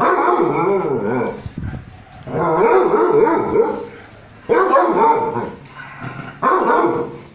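Basset hound and Dogo Argentino play-wrestling, with whining, yipping dog vocalizations in four bursts, each about a second long.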